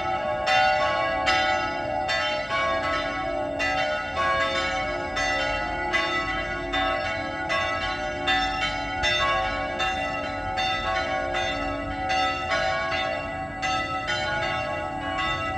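Church bells ringing in a continuous peal, several bells struck one after another at about two strokes a second, their tones overlapping. The ringing announces the hour of pilgrimage and Mass.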